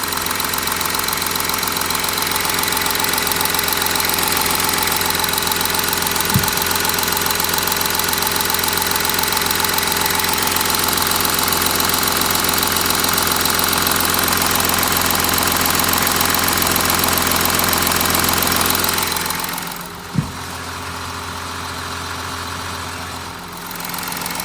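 VW Touareg 3.0 TDI V6 diesel engine running cold, with the swishing, scraping noise from the left side of the engine that appears only while it is cold. It goes quieter for a few seconds near the end, and there are two brief knocks.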